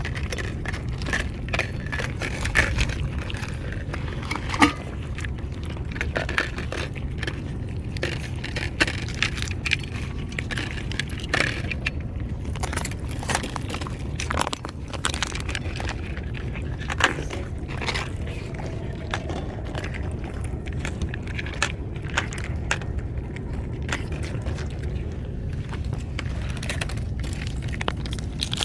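Cats eating wet food: many irregular small clicks and smacks, over a steady low rumble.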